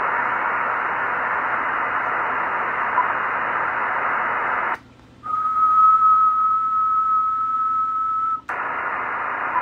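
Icom IC-9700 receiving the FO-29 satellite downlink on upper sideband: a steady, thin radio hiss. The hiss cuts out almost five seconds in, a single steady tone sounds for about three seconds, and then the hiss comes back near the end.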